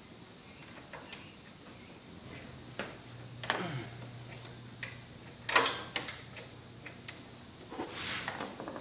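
Scattered metal clicks and clanks of a ratchet and socket on an idler pulley nut being loosened, with a sharp clank about five and a half seconds in and a quick run of ratchet clicking near the end.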